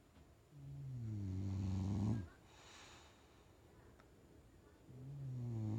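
Bulldog snoring in its sleep: a loud, pitched snore on the in-breath that sinks a little in pitch and cuts off sharply, followed by a softer breathy out-breath. The next snore begins near the end.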